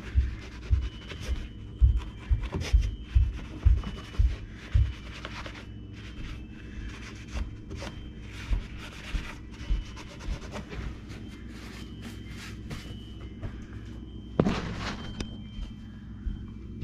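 A hand rubbing a small piece of wooden baseboard trim with a white pad, in repeated strokes, with low knocks during the first five seconds. A sharp thump comes about fourteen and a half seconds in.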